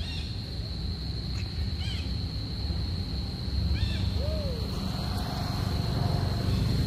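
Night ambience: a steady high-pitched insect trill over a low rumble, with a few short squeaky calls, one of them lower and longer about four seconds in.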